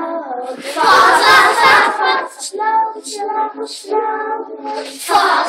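A group of young children singing an English song together.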